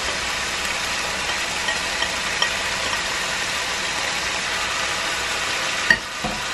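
Sizzling in a frying pan of pork, potato and carrot as diced red capsicum is tipped in, with a few faint ticks and a sharp tap near the end.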